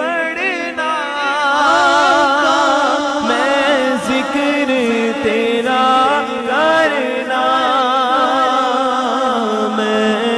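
A man singing a Punjabi naat into a microphone, unaccompanied, with an echo effect. He draws out long, wordless held notes with a wavering, ornamented pitch.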